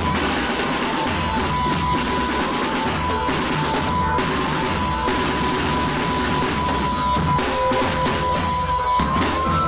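A drum band playing: dense, continuous drumming under a long held melody note, which changes pitch near the end.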